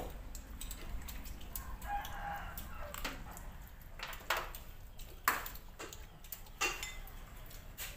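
A rooster crowing, with sharp clicks of spoons against ceramic plates and bowls.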